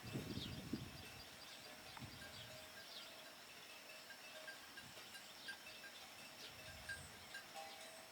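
Faint wetland ambience: steady high thin tones with short falling chirps about once a second, after a brief low rustle at the start.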